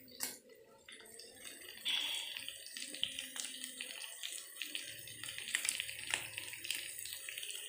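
Stir-fry of tempeh, chicken and vegetables sizzling in a frying pan on a gas stove. The sizzle comes in about two seconds in, a steady hiss with many small crackles.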